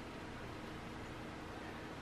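Low steady hiss of room tone with a faint hum, with no distinct clicks or handling sounds.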